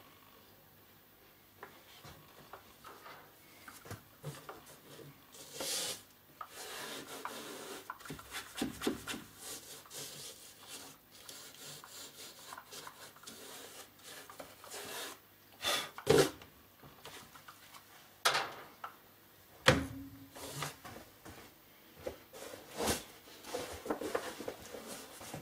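Handling noise: gloved hands rubbing and shifting a Marshall JCM 900 amplifier head's cabinet, with scattered clicks and knocks, two of them sharper in the second half.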